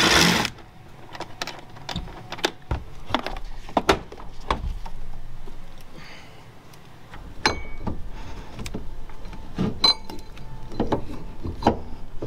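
A cordless power tool's motor whirs briefly right at the start. Then comes a string of sharp metallic clicks, clinks and knocks as tools and parts are handled.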